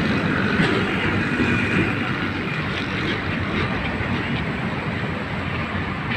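Steady wind noise buffeting the microphone, heaviest in the low end.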